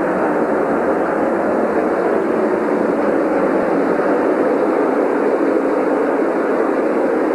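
A pack of Indy Racing League cars' V8 engines running at full speed together, a steady dense engine noise without a break as the field goes through the turns.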